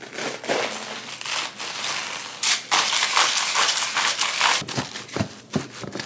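Napa cabbage being handled by hand, its crisp leaves crunching and crackling, densest through the middle, with a few sharp knocks near the end.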